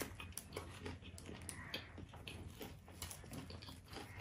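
Close-miked chewing and lip-smacking of a mouthful of food, with irregular wet clicks.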